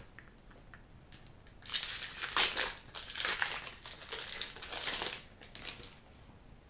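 Foil wrapper of a Magic: The Gathering Double Masters booster pack crinkling as it is opened by hand. It starts about two seconds in and goes on for about four seconds in dense crackly bursts.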